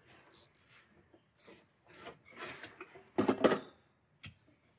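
Hands working in a car's footwell under the dashboard: a string of short scrapes and rubs of parts and wiring, loudest just past three seconds in, then a single sharp click.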